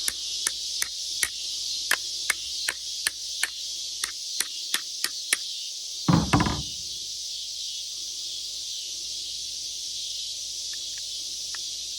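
A hammer tapping a punch on a seized hood latch, about fifteen sharp metallic strikes in quick succession, followed about six seconds in by one louder, heavier knock. The strikes are driving the rusted latch mechanism free.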